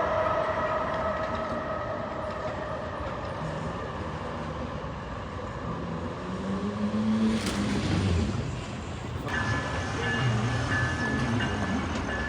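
A train's multi-note horn chord dies away at the start, followed by the steady rumble of the train running by. About nine seconds in, a high, repeating electronic tone starts up.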